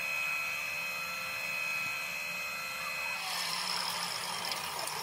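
Hydraulic hose crimping machine running with a steady whine. About three seconds in it changes to a rougher, noisier machine sound that stops abruptly at the end.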